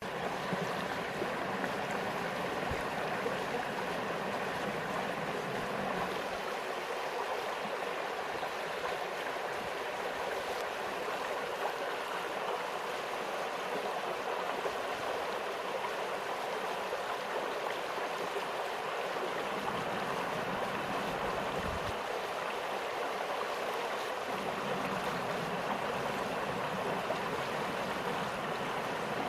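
Small stream flowing steadily, an even, unbroken rush of water.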